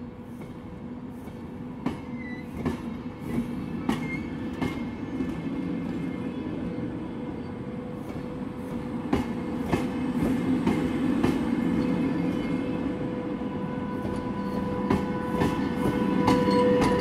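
VR double-deck passenger carriages rolling slowly past, their wheels clicking irregularly over the rails, followed by the electric locomotive, whose steady hum comes in near the end. The train grows steadily louder as it comes closer.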